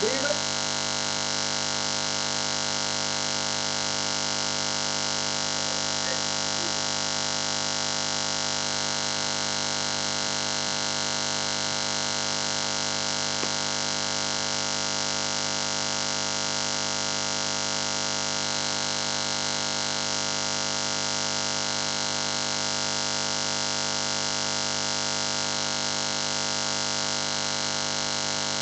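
Steady electronic hiss and hum with many fixed tones, unchanging throughout: the dead audio line of a video call whose connection has stalled.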